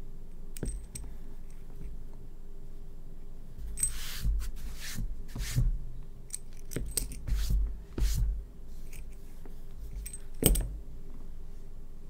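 A coiled keyboard cable with a metal aviator connector being handled and set down on a desk mat: scattered clicks and rustles with soft thumps, the sharpest knock near the end.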